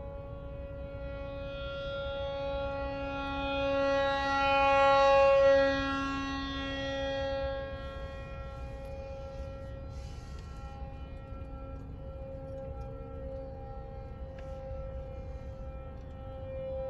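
American Signal T-128 electronic outdoor warning siren sounding a steady, unwavering tone. The sound swells loudest around five seconds in and fades as the rotating horn array turns away, then begins to swell again near the end.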